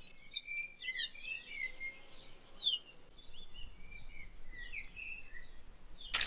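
Several small songbirds chirping and whistling, with short rising and falling notes overlapping one another. Just before the end, a sudden loud rush of pouring water cuts in.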